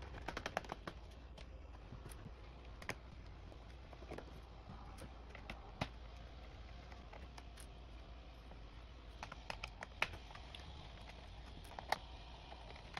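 Scattered small clicks and taps of laptop screws being worked out of the ThinkPad P52's bottom case and set down on a wooden table, a quick cluster at the start and single clicks every few seconds after.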